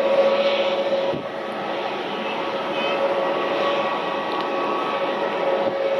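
Jet airliner's engines: a steady high whine over a broad roar, dipping a little about a second in.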